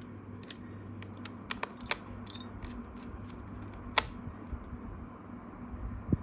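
Scattered light clicks and taps from handling a laptop's parts, a few close together about two seconds in and the sharpest about four seconds in, over a steady low hum.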